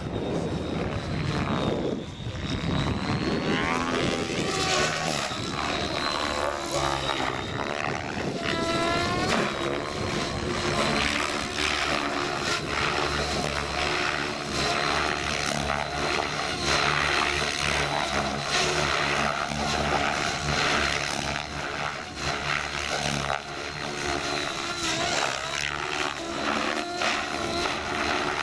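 Radio-controlled model helicopter flying aerobatics, its motor and rotor blades whining steadily, with the pitch sweeping up and down several times about a third of the way in as it manoeuvres.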